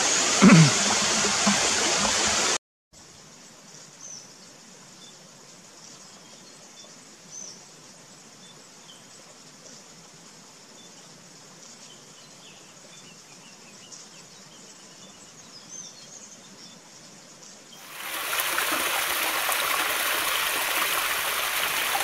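Water splashing from a small forest waterfall into a shallow stream, with a brief low knock about half a second in; the water cuts off suddenly after about two and a half seconds. A long quiet stretch follows with a few faint, high bird chirps, and the waterfall's splashing comes back near the end.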